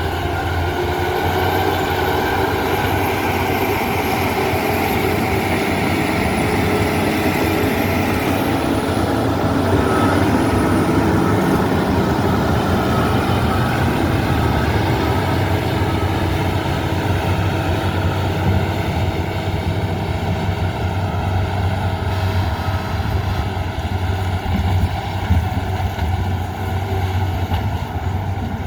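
Diesel engine of a heavy construction machine running steadily under load, with a faint high whine that drifts lower early on.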